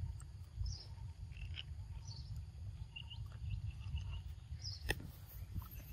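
Short, high bird chirps every second or so over a steady low rumble, with one sharp click about five seconds in.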